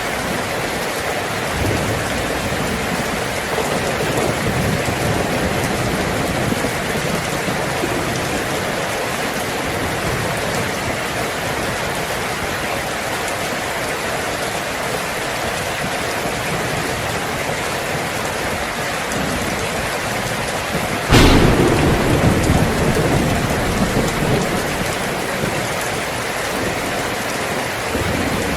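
Heavy rain drumming steadily on a tin roof. About three-quarters of the way through, a sudden loud thunderclap cracks and then rumbles on.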